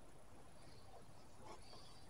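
Near silence: room tone, with one very faint small tick about one and a half seconds in.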